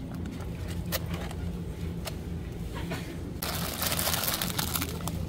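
A plastic produce bag crinkling loudly as it is grabbed and handled, starting about three and a half seconds in. Before that, a few light clicks of a plastic food tub being handled over a steady low store hum.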